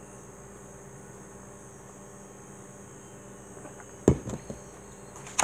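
Steady electrical mains hum. About four seconds in comes a sharp knock, followed by a few small clicks.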